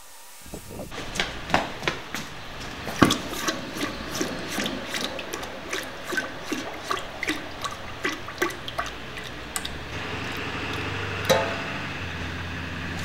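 Red-hot forged steel hewing axe head quenched in a barrel: the quenchant hisses and bubbles with many sharp crackles and pops, starting about a second in. A steady low hum joins in near the end.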